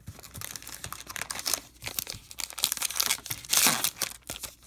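A baseball card pack's wrapper being torn open and crinkled by hand, a dense crackling that is loudest about three and a half seconds in.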